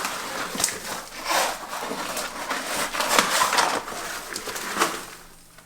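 Irregular rustling and scraping of digging through the soil of a potato tower during a potato harvest, easing off just before the end.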